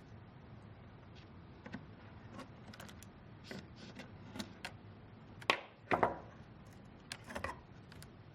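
Light, scattered clicks and taps of pliers and small metal and plastic parts being handled, as the ground terminal cables of a ventilator's connector plate are pulled off their lugs. The sharpest clicks come a little past the middle.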